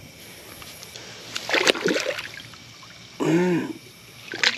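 Splashing and sloshing in shallow water and mud as a flathead catfish is set back into the river, in a few short bursts. A short grunt from the man comes about three seconds in.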